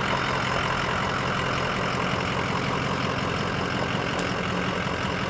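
Ford F-250's 7.3 Powerstroke V8 turbo-diesel running steadily at low speed as the truck creeps forward. The owners believe the engine is shot, with metal throughout it.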